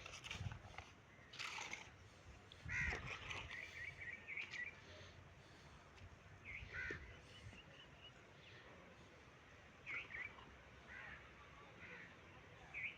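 Faint bird calls, short cries repeated every few seconds, over a low steady background noise. A couple of dull knocks come in the first three seconds.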